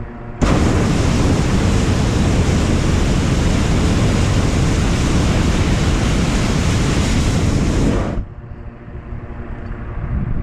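Hot air balloon's propane burner firing in one long blast of about eight seconds, starting and cutting off abruptly.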